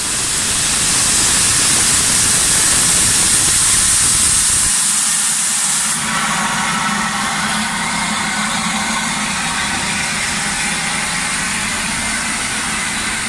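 Loud, steady hiss of steam escaping from L&YR 0-6-0 steam locomotive No. 52322; the hiss eases a little about six seconds in.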